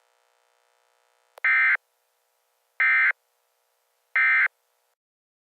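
Emergency Alert System SAME end-of-message data tones: three identical short bursts of shrill digital warble, each about a third of a second long and about a second apart, marking the end of the alert.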